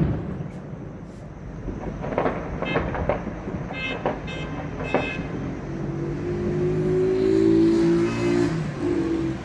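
Celebration noise carrying across a city. A sharp bang comes right at the start, then scattered cracks and short horn blasts a few seconds in. Car horns honk steadily for the last few seconds.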